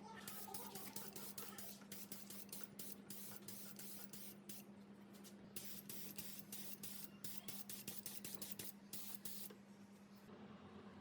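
Short bursts of hissing spray, a few a second, stopping near the end, over a steady low hum.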